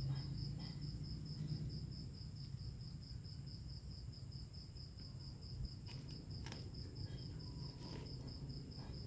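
Cricket chirping steadily, a high pulsed note about five times a second, over a low background rumble, with a few faint clicks in the second half.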